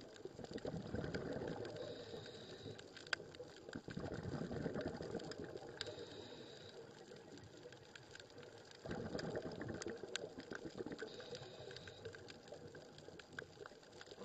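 Underwater sound of a scuba diver's regulator breathing: three long surges of bubbling rumble from exhalations, each starting abruptly and fading over a few seconds, with scattered sharp clicks.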